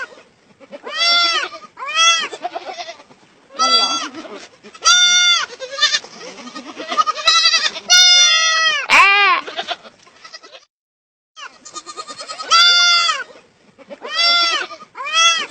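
A hungry lamb bleating for milk, about ten loud, pitched calls each under a second, in quick succession, with a brief silent gap partway through.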